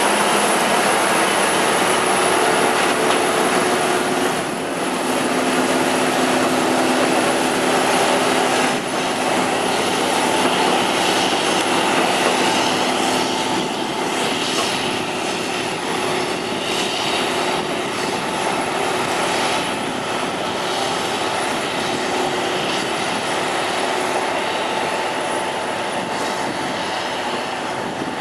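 John Deere 7760 cotton stripper running steadily: a loud, continuous drone of engine and harvesting machinery, with several steady hum tones and a thin high whine over it.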